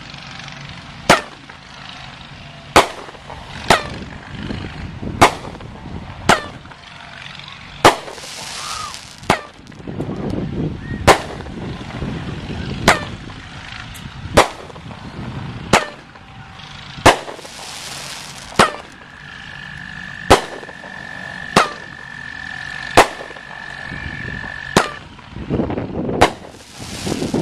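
Black Cat 'Catastrophe' firework going off: a string of sharp bangs, one every one to two seconds, over continuous crackle and rumble. There are two brief hissing stretches, and a steady high whistle runs through the later part.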